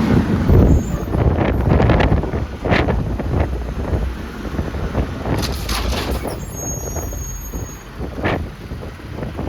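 Garbage truck running, with wind gusting on the microphone. A brief high squeal comes a little past halfway.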